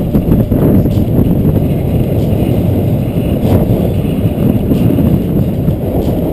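Wind rushing over the microphone of a camera riding on a bicycle during a fast downhill descent: a loud, steady, low noise, with a few faint clicks.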